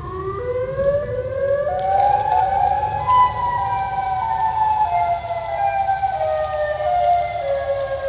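Chicago's outdoor warning sirens wailing: several siren tones at different pitches overlap, climbing in steps over the first three seconds and then slowly falling, over a steady low rumble. The recording sounds distorted.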